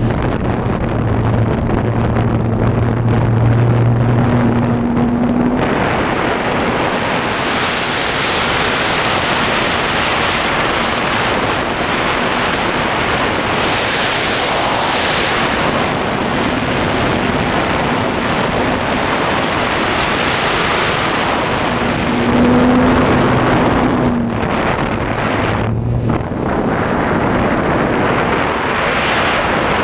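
Drone motors and propellers running, heard from the camera mounted on the craft, with wind rushing over its microphone. A low steady hum holds for the first five seconds, then a louder rushing noise takes over as it flies. The hum comes back briefly about three quarters of the way through.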